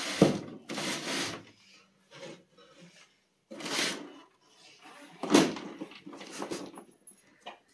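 A cardboard box and a plastic exhaust-fan housing being handled and shifted on a tabletop: several separate bursts of rubbing and scraping, the loudest a bump about five seconds in as the fan is set down on the box.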